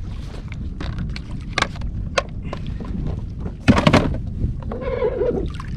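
Wind rumbling on the microphone in a kayak at sea, with small clicks of gear being handled and a louder knock about four seconds in.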